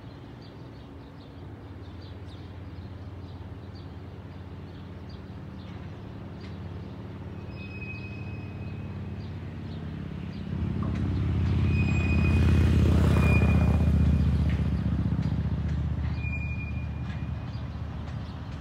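Shunting locomotive's engine running with a steady low hum that swells much louder about ten seconds in, peaks, then eases off. A few brief high-pitched squeals cut in along the way.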